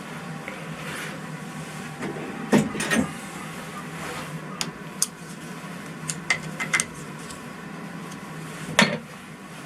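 Metal tools and parts clinking and knocking on a lathe while a carriage stop is set against gauge parallels. There are several sharp clicks and clunks, the loudest about two and a half seconds in and near the end, over a steady low hum.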